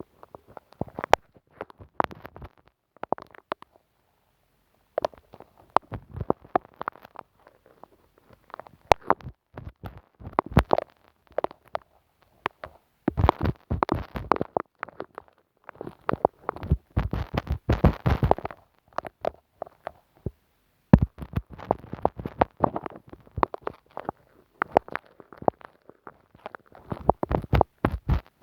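A glue stick rubbed and dabbed right on the microphone: close, sticky crackles, pops and rubbing in irregular clusters, with short gaps of silence between them.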